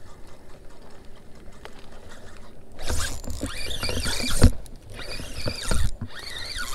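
Spinning reel being cranked to bring in a hooked fish, its gears whirring. It gets much louder about three seconds in, with a few knocks.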